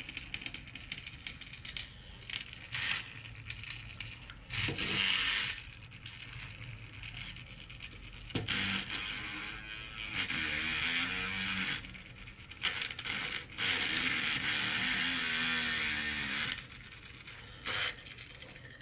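Phillips screwdriver turning out the small screw of a plastic toy car's battery cover: stretches of scraping with scattered clicks as the plastic is handled.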